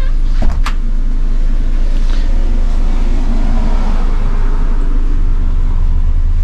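Car engine running with a steady low rumble, with two sharp clicks about half a second in.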